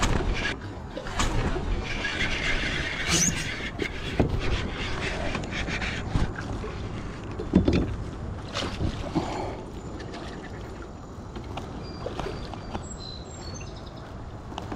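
Knocks, clicks and rattles of a landing net and fishing rod being handled against a plastic fishing kayak. The handling is busiest in the first half, and a few short high chirps, likely birds, come near the end.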